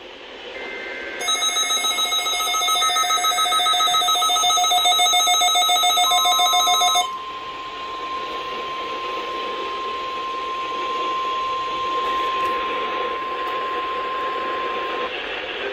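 An emergency-alert tone sequence received over weather radio. First comes a loud, rapidly pulsing electronic alert beep for about six seconds, with faint data-burst tones under its start. Then comes a single steady attention tone for about nine seconds, the NOAA Weather Radio alert signal, over a constant hiss of radio static.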